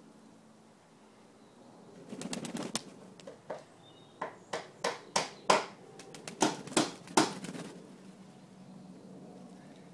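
Pigeons flapping their wings: a burst of wingbeats about two seconds in, then a run of a dozen or so sharp single flaps, roughly two a second, that stops about seven and a half seconds in.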